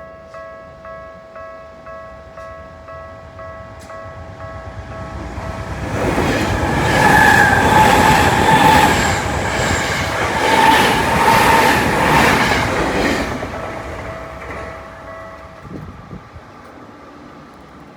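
Japanese railway level-crossing warning bell ringing steadily, about two strikes a second, as a Tokyu Toyoko Line train passes over the crossing. The train swells to a loud rush with rhythmic wheel clatter over the rail joints for about seven seconds, then fades, and the bell stops near the end.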